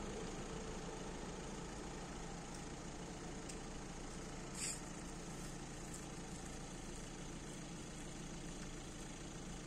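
Car engine idling steadily at a level crossing while the barrier arms rise, with a single sharp click about halfway through.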